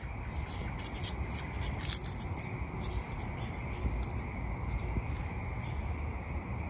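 Cardboard burning in a stainless steel biomass camping stove, crackling with many small irregular snaps and ticks over a steady low rumble.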